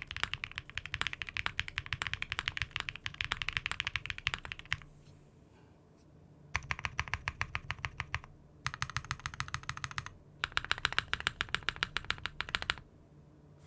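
Fast typing on a mechanical keyboard with Cherry-profile keycaps, a quick run of key clacks in four bursts separated by short pauses.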